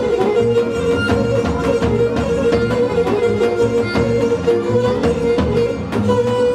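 Pontian Greek folk dance music led by a bowed fiddle, playing a melody over a held drone note and a steady beat. A new, higher held note comes in near the end.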